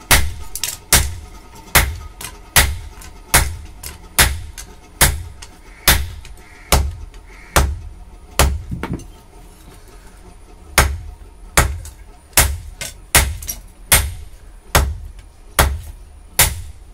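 Hammer blows on a red-hot leaf-spring steel knife blade against an anvil: hand forging. Sharp metallic strikes come a little more than once a second, with a pause of about two seconds midway.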